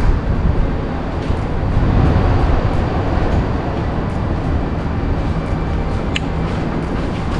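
Steady road and engine rumble inside a moving car's cabin, with one brief high-pitched tone about six seconds in.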